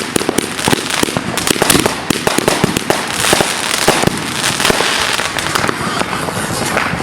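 Fireworks going off: a dense, continuous run of rapid sharp pops and crackles.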